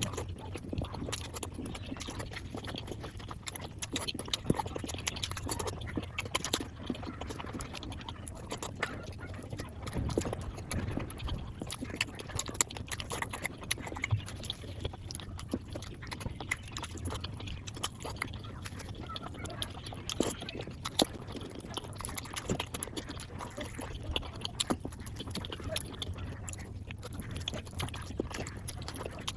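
Chewing and mouth sounds of someone eating flatbread with curry, sped up five times, so the smacks and clicks come as a rapid, continuous patter.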